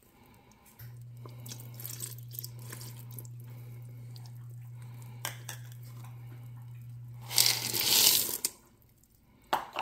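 Light cream poured from a measuring cup into the pot of dumplings and broth, a soft trickle over a low steady hum. About seven seconds in, a cup of frozen peas is tipped in with a brief loud rattling rush into the liquid.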